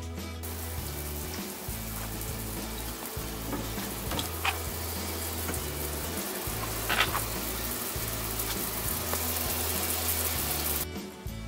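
Water spraying steadily from a rain-style shower head, a continuous hiss that starts about half a second in and stops shortly before the end, with two brief louder moments near the middle. Background music with a steady bass line plays under it.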